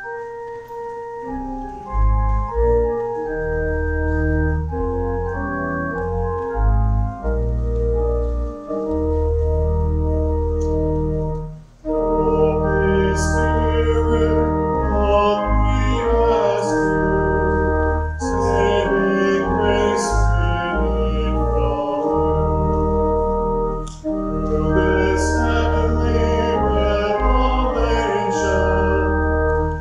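Church organ playing a hymn introduction in held chords over low pedal notes. After a short break about twelve seconds in, voices join the organ in singing the hymn.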